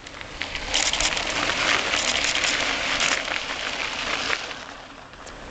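Mountain bike tyres crunching and crackling over a dry dirt singletrack as two riders pass close by. The sound builds within the first second and fades away after about four seconds.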